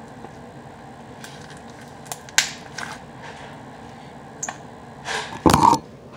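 Gray slime being squeezed and poked by hand, giving a few short sticky pops and clicks. Near the end come louder knocks and rustling as the phone recording it is picked up and handled.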